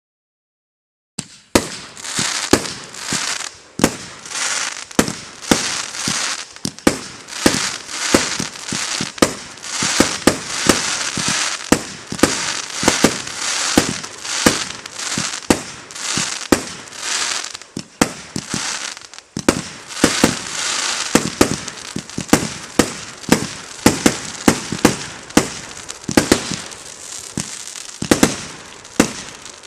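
Fireworks going off: a rapid series of sharp bangs, roughly one or two a second, over continuous crackling, starting about a second in.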